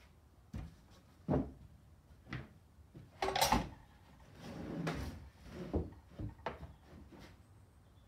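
Length of 4x2 timber handled on a wooden workbench: a string of short wooden knocks and thumps as it is set down and positioned, with a louder scrape a little past three seconds in and a softer slide soon after.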